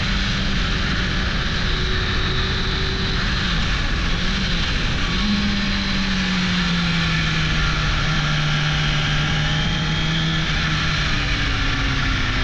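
1998 Suzuki GSX-R 600 SRAD's inline-four engine running under way, under heavy wind noise on the microphone. The engine note steps up about five seconds in, then slowly drops.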